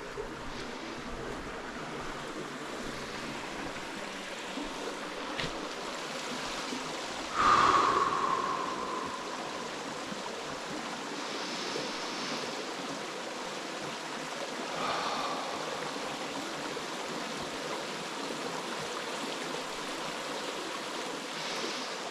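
Steady rushing of a forest stream. About seven seconds in, a loud single call-like tone slides down in pitch and fades over a second or two, with a few fainter high calls later on.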